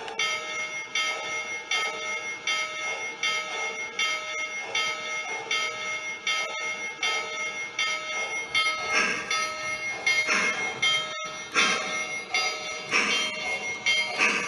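Lionel Pennsylvania Flyer toy train's electronic bell sound ringing steadily, about two strokes a second. From about two-thirds of the way through, louder irregular noisy bursts join in over the bell.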